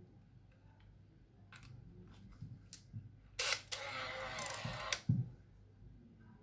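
Small plastic clicks from a Yashica full automatic 35 mm camera as it is handled and its batteries are fitted, then about a second and a half of buzzing from the camera. The owner has said it buzzes when the batteries go in even though its flash doesn't work.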